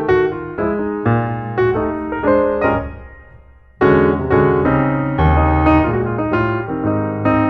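Background piano music: notes and chords played in a steady flow that dies away about three seconds in, then comes back louder with a deep chord near four seconds.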